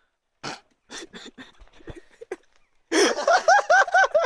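A young man laughing hard, a rapid run of high-pitched 'ha' bursts starting about three seconds in. Before that there are only scattered short sounds.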